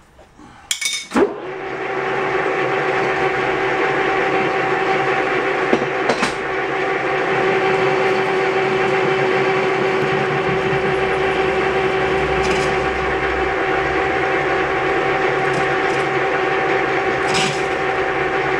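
Metal lathe started with a few clunks about a second in, then running steadily with a whine from its gearing while it takes a light skim cut on the outside diameter of a shaft section. A few faint ticks can be heard over the running.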